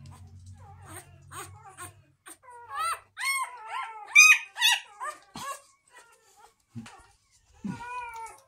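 Newborn Cane Corso puppy crying in a series of short, high-pitched yelps and whimpers, loudest in a run of cries about three to five seconds in. It is crying as a rubber banding ring is put on its tail for docking.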